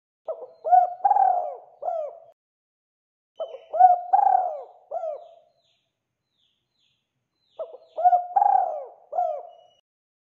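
Spotted dove cooing: three phrases of several short hooting notes. Each phrase has one longer, stronger note in the middle, and the phrases come a couple of seconds apart.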